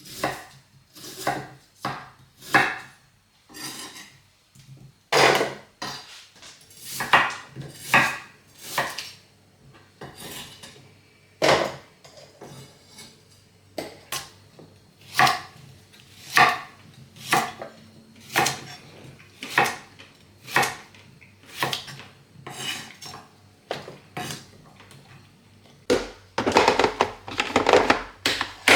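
Hard objects being handled and set down, clattering and knocking about once a second, some with a short ring. A denser run of clatter comes near the end.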